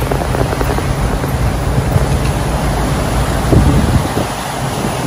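Wind buffeting the microphone over the rush of a ship's churning wake, with a steady low rumble underneath.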